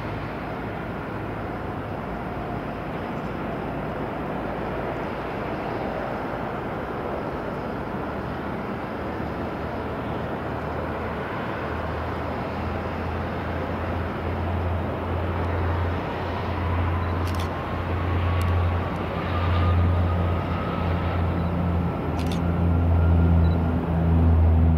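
Jet airliner engine noise: a steady rush with a thin whine that slowly rises in pitch. In the second half a low rumble comes and goes over it, with a few sharp clicks.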